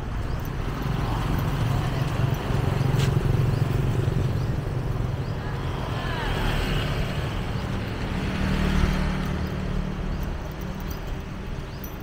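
Street traffic: passing cars and motorbikes make a steady low rumble, with faint voices in the background.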